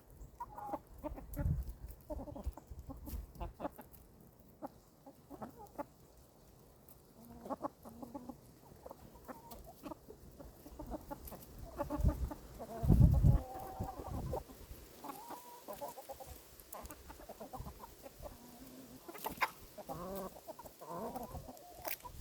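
Chickens clucking: a scatter of short calls, some running together. A brief, loud low rumble comes a little past the middle.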